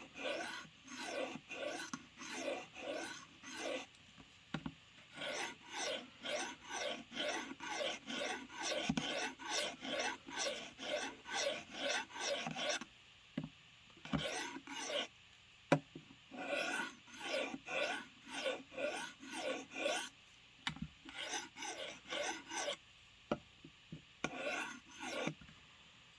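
Knife blade drawn across the abrasive plate of a Work Sharp field sharpener in steady rasping strokes, about two a second, to set the edge angle. The strokes break off twice, about 13 and 21 seconds in, and a few sharp clicks fall in those gaps.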